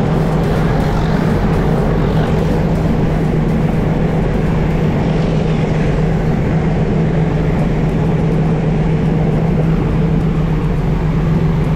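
Moving vehicle running steadily: a constant low engine hum over even rumbling noise.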